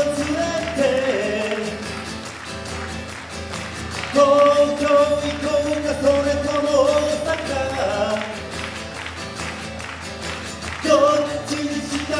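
A singer singing a Japanese song live to his own strummed acoustic guitar. He sings held phrases from about a third of the way in and again near the end, with the guitar carrying on between them.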